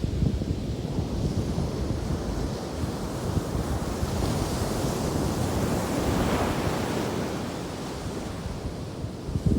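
Ocean surf breaking and washing ashore, with a wave building and crashing about four to seven seconds in, and wind buffeting the microphone.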